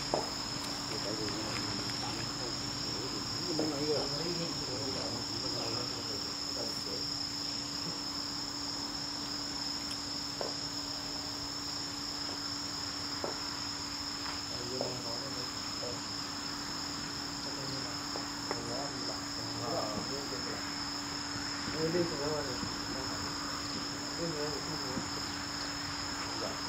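Insects chirring steadily in a continuous high-pitched chorus, with a faint steady low hum underneath.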